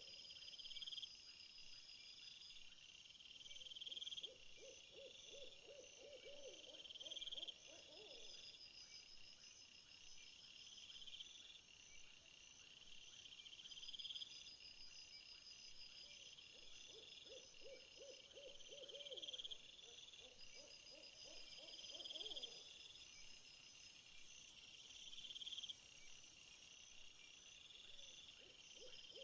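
Quiet outdoor nature ambience: insects chirping in a regular pattern about every two seconds, joined twice by a low, rapid trill that lasts a few seconds. A high, steady insect buzz comes in near the end.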